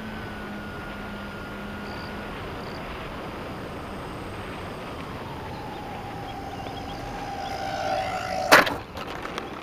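The model plane's electric motors whine over a steady rush of air. About five seconds in, the whine slides lower and grows louder. About eight and a half seconds in comes one sharp crack as the plane strikes the pavement, and the whine stops.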